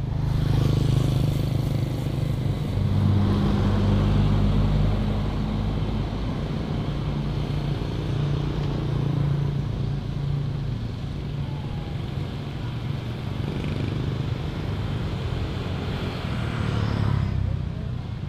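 Motor vehicle engine running with a steady low note that swells and eases a few times, loudest about three to five seconds in and again just before the end.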